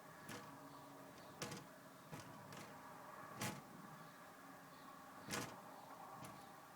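Aluminium roller-shutter slats knocking against their guide rails in a light wind: about seven sharp clacks at uneven intervals, the loudest about three and a half and five seconds in, over a faint steady hum.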